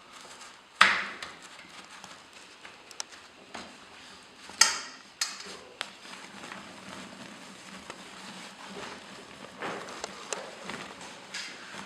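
Handling noises: scattered knocks and clicks, the sharpest about a second in and another about four and a half seconds in with a brief rustle after it.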